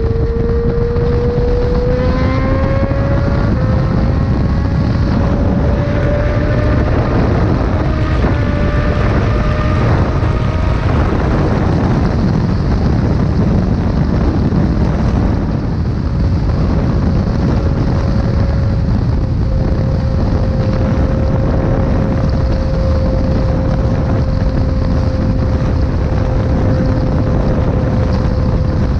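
Inline-four sport motorcycle engine running hard at speed, its pitch climbing over the first few seconds and then holding steady, under heavy wind rush on the microphone.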